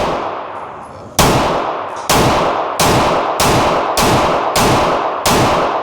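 Handgun fired in a steady string of seven shots, about two-thirds of a second apart, each report echoing and fading in an indoor shooting range.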